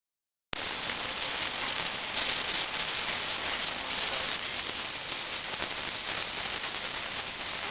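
Steady hissing, rattling noise of powder packaging machinery running, cutting in abruptly about half a second in.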